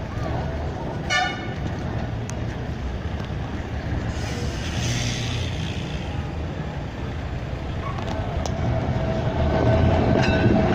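Vintage Blackpool balloon double-deck tram running along street track and passing close, its low rumble steady at first, then a steady whine that grows louder over the last few seconds as it comes alongside. A short horn toot about a second in.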